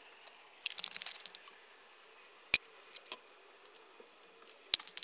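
Small metal parts clicking and clattering by hand as a fuel line and its clips are fitted: a quick run of light clicks in the first second and a half, then single sharp clicks about two and a half seconds in and near the end.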